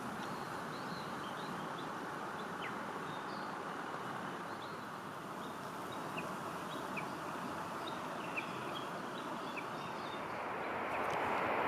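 Small birds calling with many short, high chirps scattered throughout, over a steady rushing background noise.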